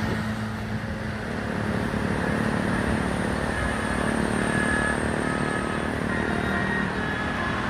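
Steady low engine rumble of a heavy road vehicle amid traffic noise, with no horn sounding.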